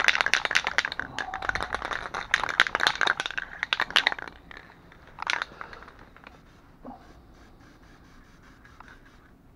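Aerosol spray-paint can being shaken hard, its mixing ball clattering in rapid clicks for about four and a half seconds. Then a single knock and faint handling noise.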